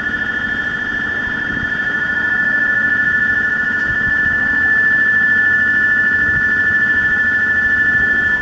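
Railway station platform departure bell ringing continuously as an electric bell, then cutting off suddenly at the end, a sign that the train's doors are about to close.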